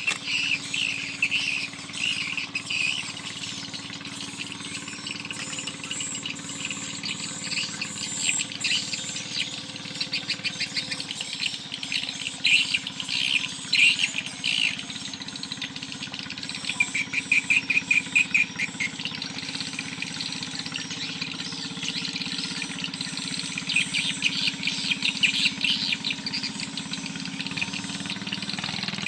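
Birds chirping and calling in repeated rapid trills, over a faint steady low hum.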